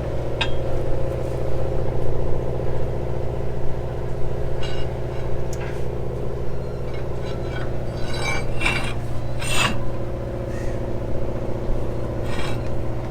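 A steady engine drone runs throughout, with scattered metallic clinks and scrapes from tools working a stay-line turnbuckle, several in quick succession about two-thirds of the way through.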